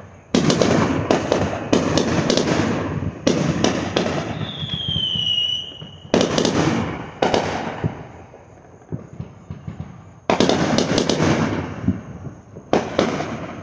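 Aerial fireworks going off: about five loud bangs, each followed by a spell of crackling. A short falling whistle sounds about five seconds in.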